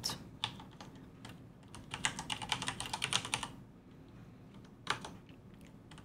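Typing on a computer keyboard: a few scattered keystrokes, then a quick run of keystrokes lasting about a second and a half, and a couple more near the end.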